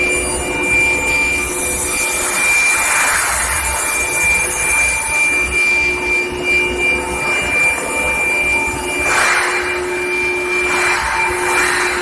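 Electric steel-heating furnace running: a steady high-pitched whine and fainter steady tones over continuous machine noise, with swells of hissing and scraping every few seconds.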